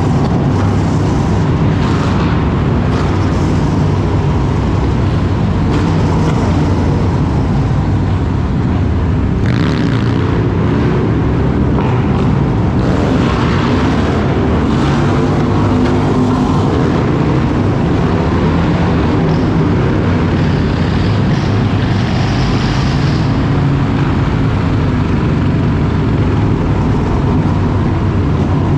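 Harley-Davidson Street Bob 114's Milwaukee-Eight 114 V-twin running steadily under way, its pitch rising and falling gently with the throttle, with some road and wind noise.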